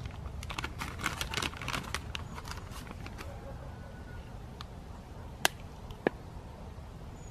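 Crinkling of a plastic bag, a dense run of small crackles, then two sharp taps about half a second apart as an egg is cracked against the edge of a metal cooking tray.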